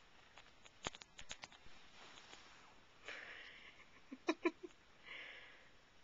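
Faint sharp clicks and soft breathy sniffs from a cat mouthing and pawing a toy mouse: a run of clicks about a second in, two short hissy breaths, and another cluster of clicks just after the first breath.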